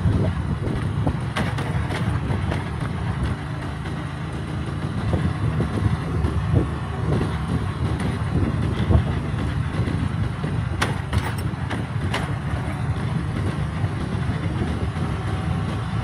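Motorcycle riding along a road at night: a steady low engine and road rumble with wind buffeting the microphone, and a few sharp clicks or rattles about eleven seconds in.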